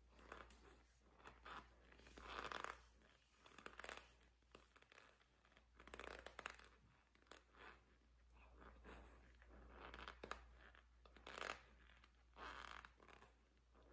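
Close-up chewing of a mouthful of crunchy white food: a run of soft, irregular crisp crunches, a few louder than the rest.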